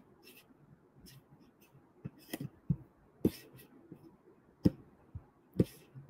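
Irregular sharp clicks and taps from someone working a computer's keyboard and mouse, about seven of them, mostly in the second half.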